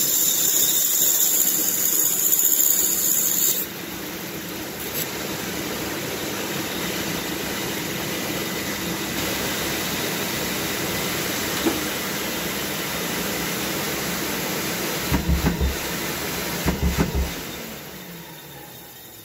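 Pégas fine-cut band saw finishing a cut through wood: a loud, high sawing noise that stops about three and a half seconds in, after which the saw runs on unloaded with a quieter steady whir. A few quick knocks come about fifteen and seventeen seconds in, and near the end the running sound fades down.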